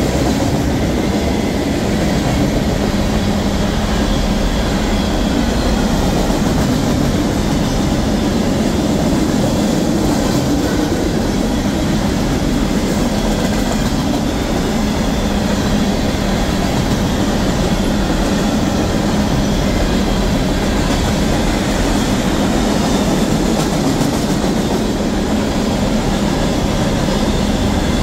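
Long freight train of covered hoppers and tank cars rolling past at speed: a steady, unbroken rumble of steel wheels on the rails.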